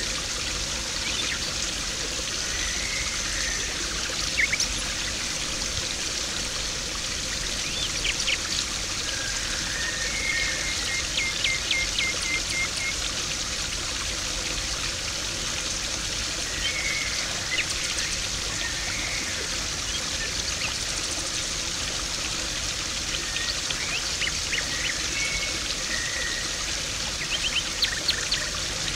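Garden pond water splashing and trickling steadily. Birds chirp now and then over it, including a run of quick repeated notes about ten seconds in.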